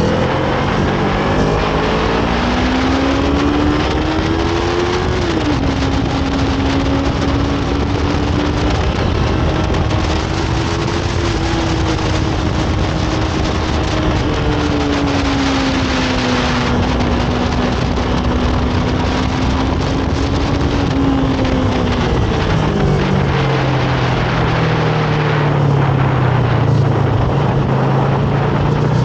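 Yamaha R3's 321 cc parallel-twin engine with its stock exhaust, under way on the road: the revs climb over the first few seconds, drop sharply with an upshift about five seconds in, hold fairly steady, then fall away near the end as the bike slows. A steady rush of wind and road noise runs underneath.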